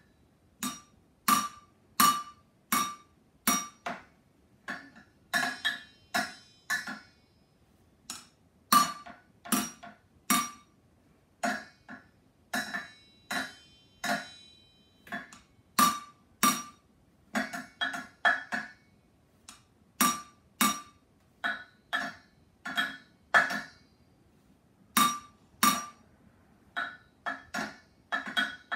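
Wooden drumsticks beating on an upturned cooking pot and a steel pot lid, each hit a sharp metallic clank with a short ring. The hits come in an uneven beat of single strokes and quick pairs, with a few short gaps.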